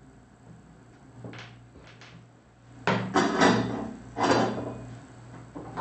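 Handling noises at a soldering bench: a few faint clicks, then two louder scraping clatters about three and four seconds in, over a low steady hum.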